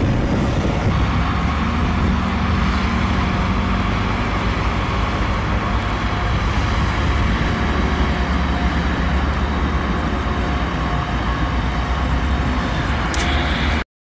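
Heavy airfield snow-removal trucks running steadily, a dense low engine rumble with a few steady tones over it; it cuts off suddenly near the end.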